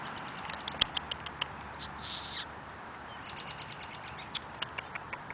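Hummingbird clicking: runs of quick, high chip notes about eight a second, broken about two seconds in by a short harsh buzz, then another fast run that slows into spaced chips.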